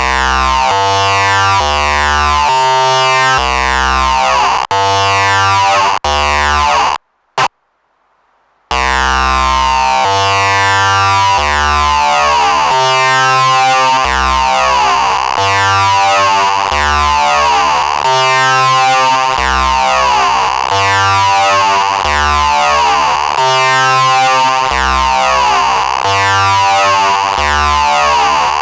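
Eurorack modular synth playing a stepped melodic sequence, a new note about twice a second: a triangle-wave oscillator bit-crushed by a Doepfer A-189-1 into a buzzy, pulse-like tone, run through a filter with its distortion circuit switched on. The sound cuts out for about a second and a half about seven seconds in, with a short blip, then the sequence resumes.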